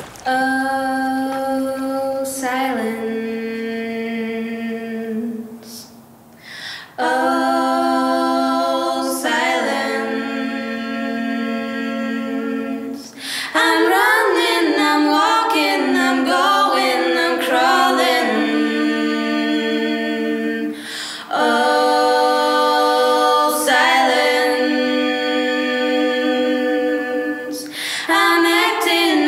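Unaccompanied singing: slow, long-held sung notes in phrases several seconds long, with short breaks between phrases.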